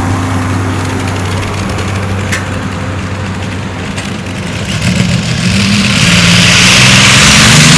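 Light-modified pulling tractor's engine running steadily, then revving up about five seconds in and getting much louder as it starts its pull, its pitch climbing.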